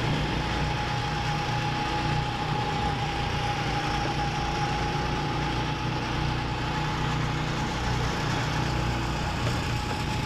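Go-kart engine running steadily at speed, heard from on board the kart, with a steady whine over the engine hum.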